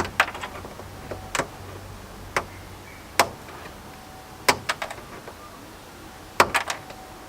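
Screwdriver striking frozen sound-deadening mat inside a car body, chipping it off the metal floor: a series of sharp, hard knocks, some single and some in quick clusters of two or three, spaced about a second apart.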